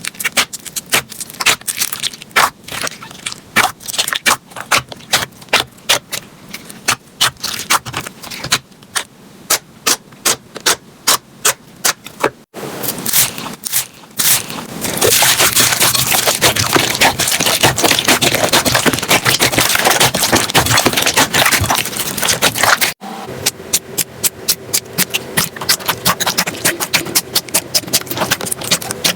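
Slime being squeezed and poked by hand, with rapid clicking and popping of trapped air. It comes as three clips, changing about twelve and twenty-three seconds in; the middle one is a denser, louder crackling.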